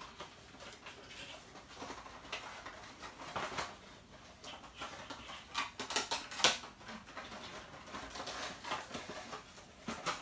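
Small cardboard figure box handled and opened by hand: scattered rustles, scrapes and light taps of the cardboard, with a few sharper clicks about six seconds in.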